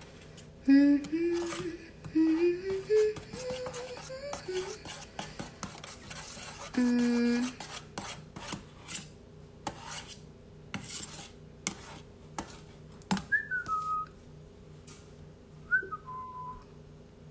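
Wire whisk clicking and scraping against a stainless steel mixing bowl as batter is whisked. A voice hums a short rising tune near the start and holds one note about seven seconds in. Two short falling two-note tones come near the end.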